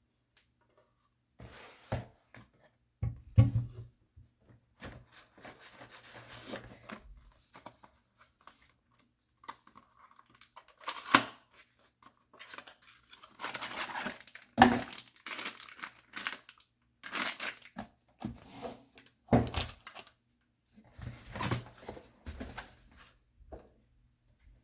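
Packaging being opened and handled: irregular tearing and crinkling of wrapping, broken by sharp knocks and thuds.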